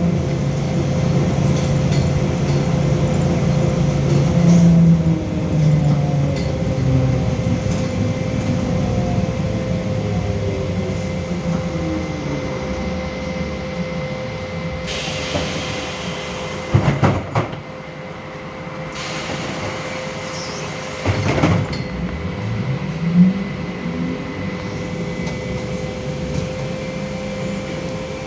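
Ride inside a LiAZ-5280 trolleybus with a DK-213 traction motor and rheostat-contactor control. The motor whine slides down in pitch as the vehicle slows, and after two sharp clunks around the middle it rises again as the trolleybus pulls away, over a steady hum.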